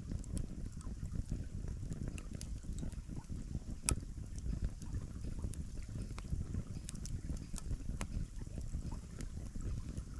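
Steady low rush of a stream's running water, with scattered faint clicks and ticks over it and one sharper click about four seconds in.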